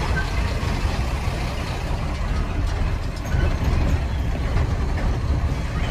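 Truck engine running, a steady low rumble with no change in pace.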